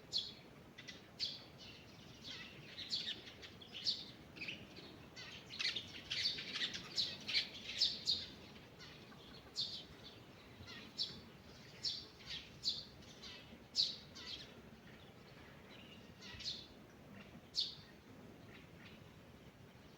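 Several small songbirds singing and chirping, with short high notes and trills coming thick around the middle and thinning toward the end, over a faint low background hiss.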